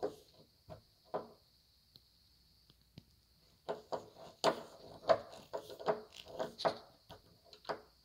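Screwdriver driving the mounting screws of a deadbolt's thumb-turn plate: a few short clicks, a pause, then a quick irregular run of clicks from the screwdriver turning in the screw head.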